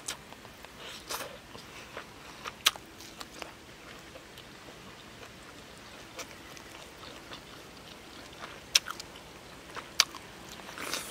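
Close-up eating sounds: a person biting into and chewing a roasted green pepper stuffed with pork. There are scattered sharp mouth clicks and smacks, the loudest about three, nine and ten seconds in.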